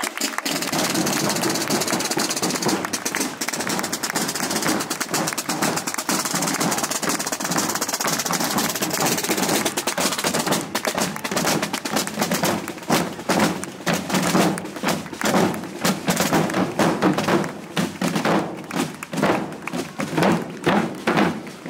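Procession drums played by a marching drum corps, large rope-tensioned bass drums among them: a dense, continuous roll at first, then from about ten seconds in a steady, slow beat of about two strokes a second.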